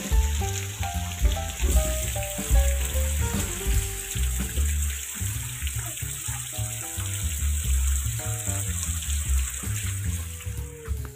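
Background music with a stepping melody and a heavy low beat, over a steady hiss of rain.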